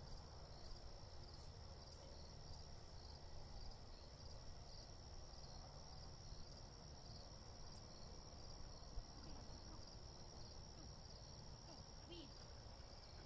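Faint chorus of crickets: a steady high trill with an even repeating pulse, over a low rumble.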